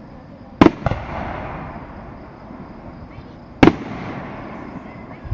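Aerial fireworks bursting: two sharp bangs close together about half a second in, and a third about three seconds later, each followed by a fading echo.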